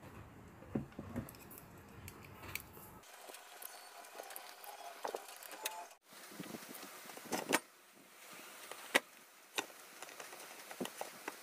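Light metallic clinks and knocks of aluminium extrusion parts and a servo motor being handled and fitted together, with scattered sharp taps; the loudest knock comes about seven and a half seconds in.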